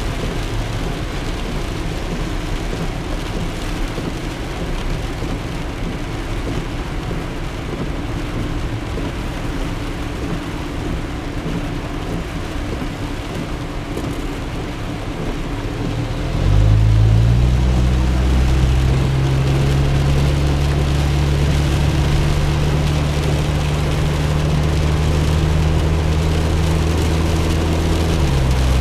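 Car driving in the rain, heard from inside the cabin: steady road and rain noise. About halfway through, a louder low hum sets in and holds steady, easing slightly near the end.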